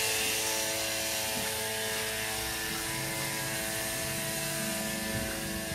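Small 80-watt solar diaphragm water pump running with a steady buzzing hum, pumping water up through a clear hose. The hum eases slightly over the first second.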